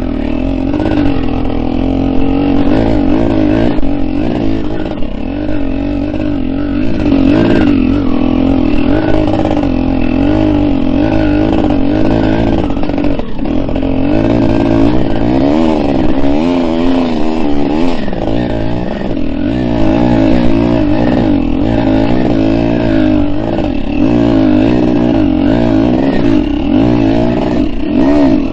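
Big-bore two-stroke dirt bike engine running under load on the trail, its pitch rising and falling continuously as the throttle is worked.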